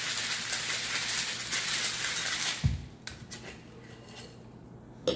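Ice rattling hard inside a metal cocktail shaker being shaken. About two and a half seconds in the rattle stops with a thump as the shaker is set down on the bar. A few light clicks and one sharp knock follow near the end.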